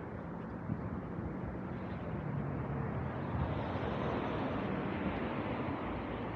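City street traffic: a motor vehicle running past, its noise swelling a few seconds in over a steady background of traffic.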